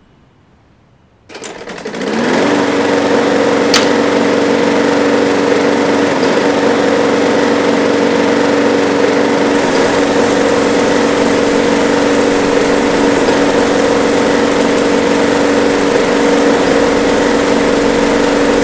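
Walk-behind gas lawn mower engine starting about a second in, picking up speed and then running at a steady pitch. A single sharp click about four seconds in.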